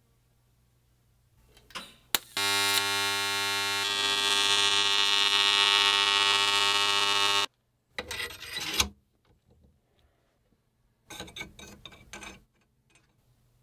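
TIG welding arc buzzing steadily for about five seconds after a click, then cutting off abruptly. Short bursts of clatter follow as the welded tube is handled.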